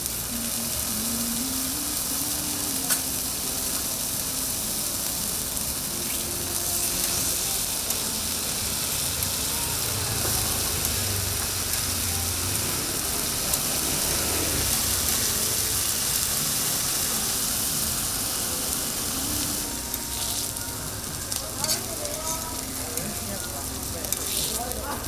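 Steady sizzle of food frying on a hot griddle.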